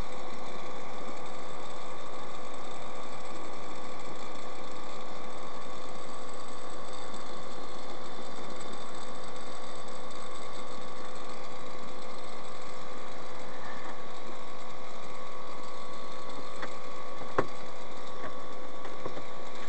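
Steady vehicle running noise, engine and tyres on the road, with a constant hum, picked up by a dashcam inside the cabin while driving at steady speed. A single sharp click about seventeen seconds in.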